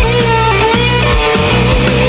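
Electric guitar through a fuzz effect, holding a lead note with a slight vibrato over a rhythmic low part.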